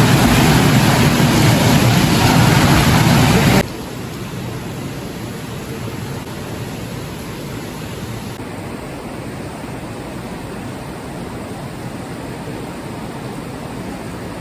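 Steady rushing noise, loud at first, then cutting suddenly to a quieter steady hiss about three and a half seconds in.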